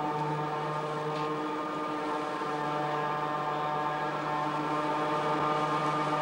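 Overhead electric crane hoist running with a steady droning hum while lifting a loaded subway car.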